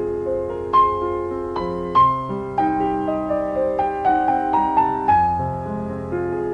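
Piano music: a slow melody over sustained chords, with a new note struck every half second or so.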